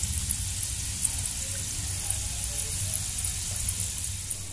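Peanuts deep-frying fully submerged in oil in a wok: a steady sizzle with many small crackles and pops, over a low steady hum. The crackling is moisture in the nuts turning to steam and bursting in the hot oil, which is what makes the oil spatter.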